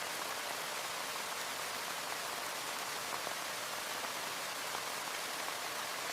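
Steady heavy rain pattering, an even hiss with a few faint drop ticks.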